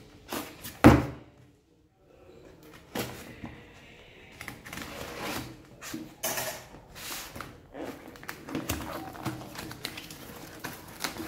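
A cardboard parcel wrapped in packing tape being handled and opened by hand: a loud thump of the box against the table about a second in, then irregular scraping and rustling of cardboard and tape.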